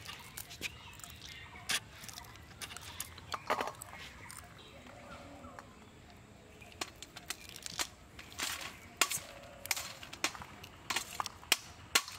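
Fresh green pea pods being split open by hand and the peas dropping into a stainless steel plate: irregular sharp clicks and light pings, a few a second, sparser around the middle.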